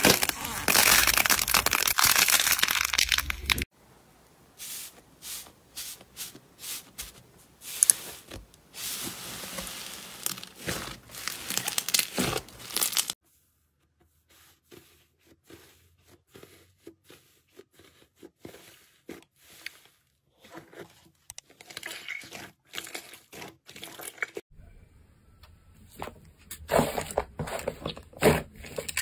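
Slime being squeezed and worked by hand, crackling and crinkling with sharp little pops. It comes in separate stretches: dense loud crackling at first, then quieter scattered pops and clicks, then louder crackling again near the end.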